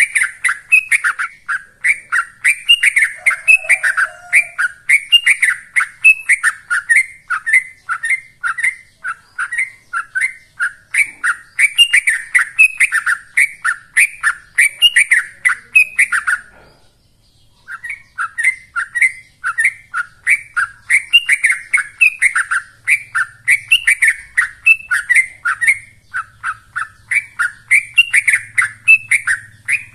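Yellow-vented bulbul (trucukan) singing in 'ropel' style: a fast, non-stop run of short, sweeping chirped notes, about three to four a second, with one pause of about a second midway.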